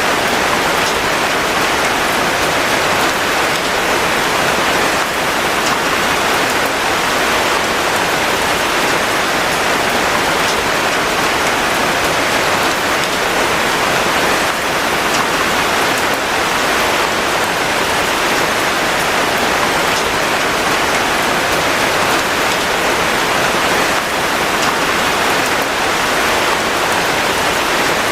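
Steady, heavy rain falling, an even hiss with faint scattered drop ticks.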